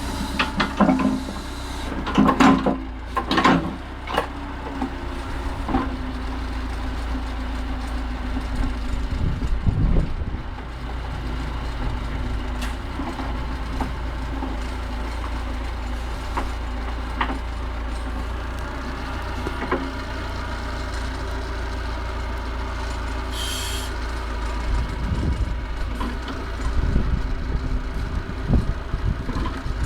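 Massey Ferguson 50HX backhoe loader's engine running steadily, with clanks and knocks of the machine working: a cluster in the first few seconds, a heavy thud about a third of the way in, and more near the end.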